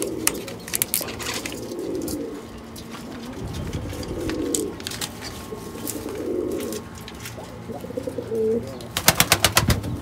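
Domestic pigeons in a loft cooing, about four low coos spaced roughly two seconds apart. Near the end comes a quick rattle of about ten sharp clicks in under a second.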